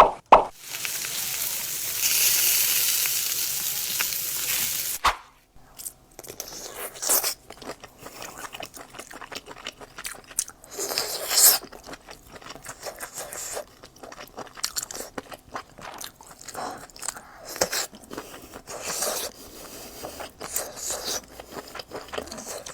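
Close-miked biting and chewing of grilled sausages, with irregular crunches as the skins are bitten through. It opens with a steady hiss that lasts about five seconds and cuts off suddenly.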